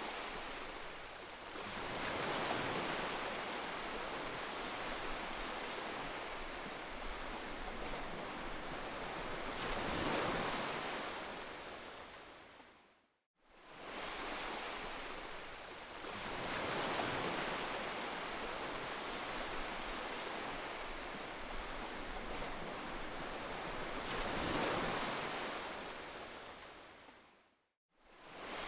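Heavy rain: a dense, steady hiss that swells and eases. It fades out to silence and straight back in about thirteen seconds in and again near the end.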